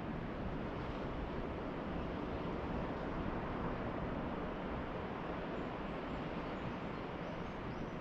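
Steady wash of distant ocean surf, with a few faint high bird chirps in the second half.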